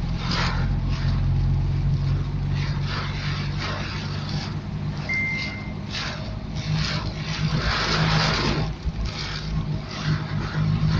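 Fiat 126p's small air-cooled two-cylinder engine running steadily under way, its pitch shifting about halfway through, with repeated swells of wet-road tyre hiss. A short high beep sounds about halfway.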